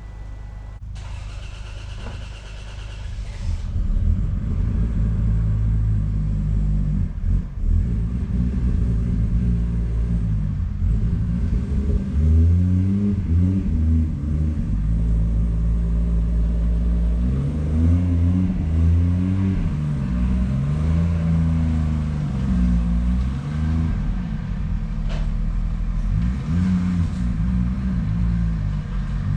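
A vehicle engine running, louder from about four seconds in, with its pitch repeatedly rising and falling as it is revved and eased off.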